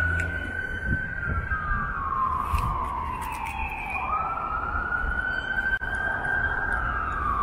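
Emergency vehicle siren wailing: each cycle rises quickly, holds high, then falls slowly, repeating about every five seconds, over low traffic rumble.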